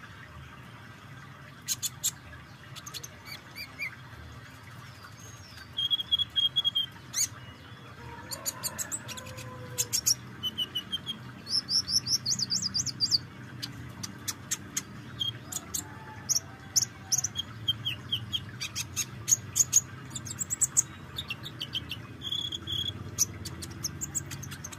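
Kolibri ninja (Van Hasselt's sunbird) calling and singing: bursts of rapid, high-pitched chips and short trills, sparse at first and coming thick and fast from about six seconds in.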